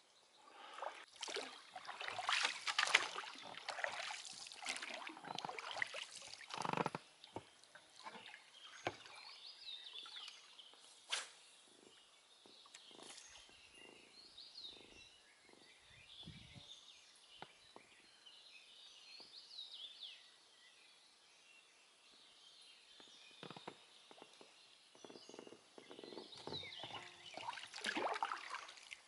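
Irregular water splashes, knocks and rustles from gear and the inflatable boat being handled, busiest in the first several seconds and again near the end. Faint bird chirps come through in the quieter middle stretch.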